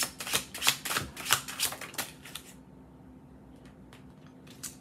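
A deck of tarot cards being shuffled by hand: a quick, irregular run of sharp card slaps and flicks for about two and a half seconds, then a few faint clicks as single cards are handled.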